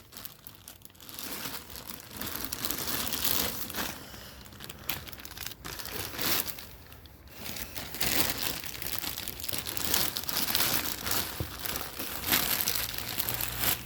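Plastic puzzle-piece bags and their wrapper crinkling and rustling as they are handled and shuffled, in irregular crackly bursts throughout.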